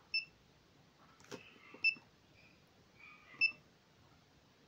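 UNI-T UT15B Max digital multimeter giving short high beeps as its front-panel buttons are pressed, three beeps about a second and a half apart, with faint button clicks between them.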